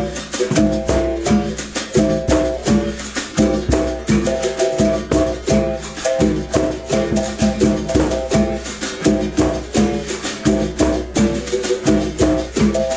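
Background music: a plucked string instrument picking out short repeated notes in a steady rhythm, with a shaker rattling on the beat over a low bass.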